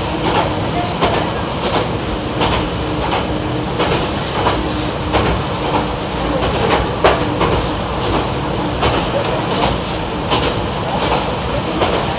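Running noise inside a YR-880 light diesel railcar at speed: the engine's steady drone and hum, with the wheels clicking over rail joints in an even rhythm, about one click every 0.7 seconds.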